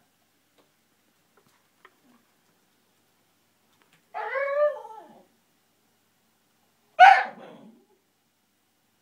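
Shiba Inu dog vocalising in frustration at a ball it can't reach. About four seconds in comes a drawn-out whining yowl that rises and then falls in pitch, and about three seconds later a single short, sharp bark.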